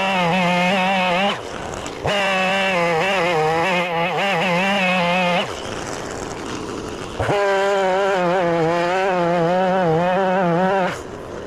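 Two-stroke chainsaw with a tungsten-tipped chain cutting through timber at full throttle in three long runs, the engine dropping back briefly between cuts. It stops right at the end.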